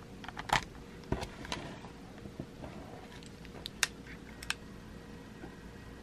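Handling noise from a Sony WM-EX621 cassette Walkman and its wired remote control: a handful of sharp plastic clicks and knocks. The loudest comes about half a second in, with scattered lighter ones over the next four seconds.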